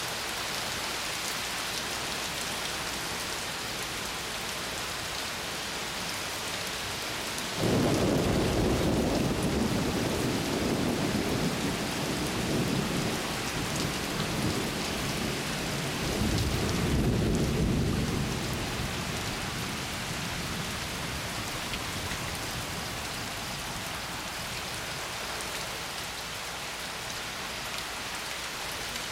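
Steady rain falling, with a thunderclap breaking in sharply about eight seconds in and rumbling on, swelling a second time about halfway through, then dying away under the rain.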